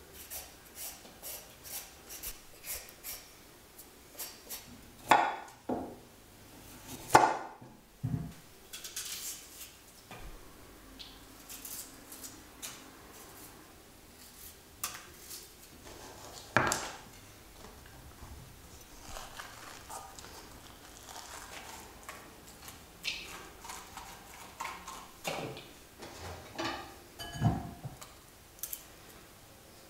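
Vegetable prep with a kitchen knife: a carrot and ginger being peeled, with scattered clicks and knocks of the knife against the bowl and cutting board. A few louder knocks stand out among them.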